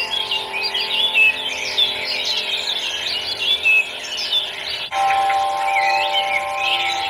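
Many small birds chirping and twittering rapidly over background music of sustained held notes. The music shifts abruptly to a new chord about five seconds in.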